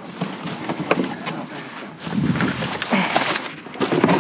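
Cardboard boxes and trash being shifted about inside a dumpster: irregular rustling, scraping and knocks, heavier in the second half.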